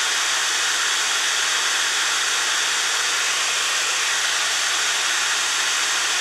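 Big blower fan running steadily: an even rush of air with a faint low hum underneath.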